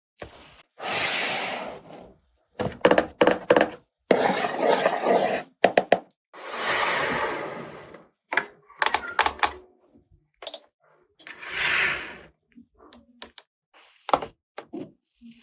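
Hard plastic toy kitchen pieces being handled: sharp clicks and knocks of plastic parts, broken by four rustling swells about a second long.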